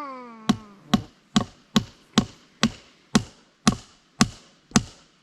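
Hammer pounding a peeled wooden fence post into the ground, with steady, even strikes about two a second.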